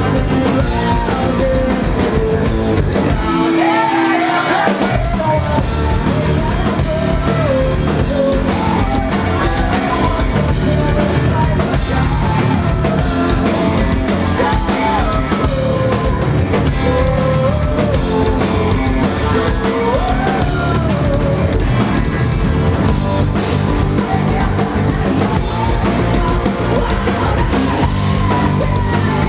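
A rock band playing live, a singer's melody over drums, bass and guitar. The low end drops out for a moment about four seconds in, then the full band comes back.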